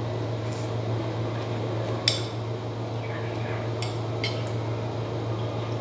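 A metal spoon clinking against a plate a few times during a meal, the sharpest clink about two seconds in, over a steady low hum.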